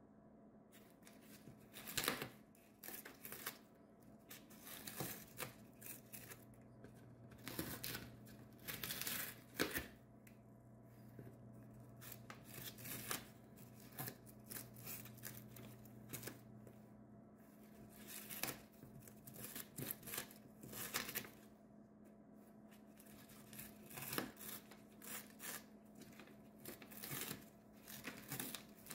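Cockatoo tearing and shredding a cardboard box with its beak: irregular bouts of ripping and crackling, with short pauses between them.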